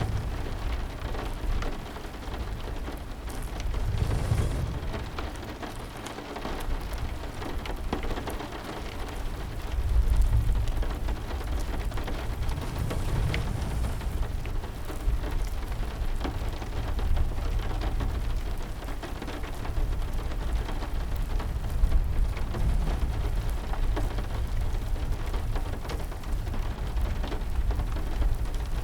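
Steady heavy rain, with deep rumbles swelling and fading about 4, 10 and 13 seconds in.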